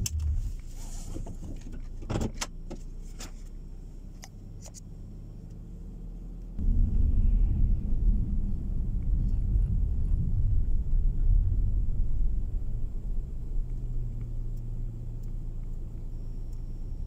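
Car interior noise. A quiet low hum with a few sharp clicks and knocks in the first seconds, then about six and a half seconds in a sudden, steady, louder low rumble of engine and tyres as the car drives on a snow-packed road.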